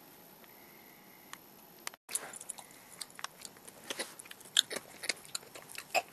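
Quiet room tone, then from about two seconds in, scissors cutting through fabric in a run of irregular snips.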